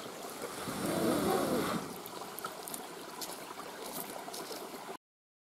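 Steady rushing of a mountain river, with a brief louder wavering tone about a second in; the sound cuts off abruptly to dead silence near the end.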